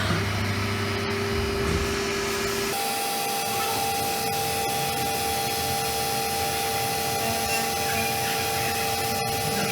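CNC milling machine running an automatic program. There is a steady spindle whine over a constant hiss, and the whine steps up to a higher pitch about three seconds in.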